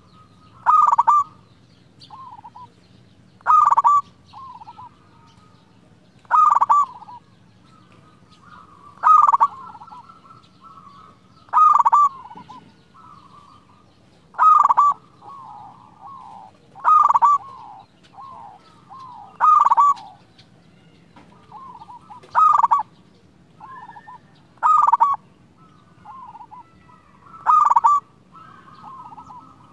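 Male zebra dove (perkutut) singing its staccato cooing song, a loud phrase about every two and a half to three seconds, with fainter cooing between the phrases.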